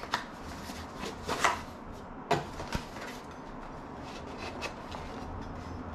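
Small cardboard box being opened by hand: a few short scrapes and knocks as the flaps are lifted and the contents handled.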